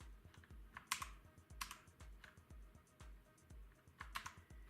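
Keys on a Red Square mechanical keyboard pressed one at a time, giving a few separate sharp clicks with pauses between them, two in quick succession near the end.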